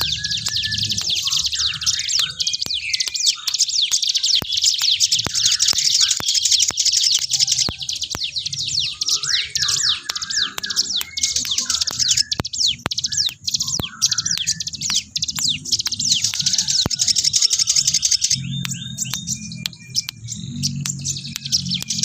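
Little spiderhunter (sogok ontong) singing nonstop: a dense stream of very rapid, high-pitched chirps and trills, with shorter, lower call notes mixed in.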